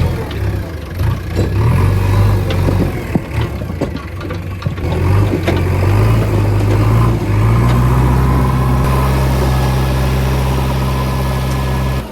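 Heavy diesel engine running under varying load, with knocks and clatter over the first half. About seven seconds in, it rises to a higher, steady speed and holds there.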